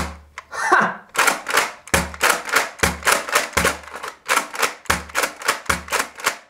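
Nerf Alpha Trooper CS-12 pump-action blaster being pumped and dry-fired over and over to test that the plunger now catches: quick plastic clicks and clacks, with a dull thump about once a second.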